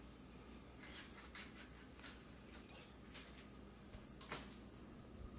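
Faint, scattered clicks and taps of a kitchen knife cutting a red bell pepper on a cutting board. The loudest tap comes a little after four seconds in.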